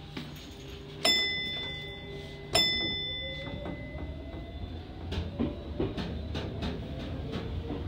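Electric train pulling away: two bright bell strikes about a second and a half apart, each ringing on and fading. Then a rising motor whine as the train gathers speed, with wheels starting to click over rail joints over a low running rumble.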